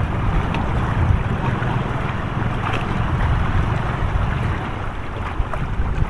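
Wind buffeting the microphone over the steady wash of sea water lapping against shoreline rocks.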